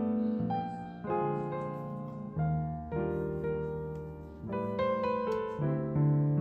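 Background music: slow, gentle solo piano, notes and chords struck and left to ring.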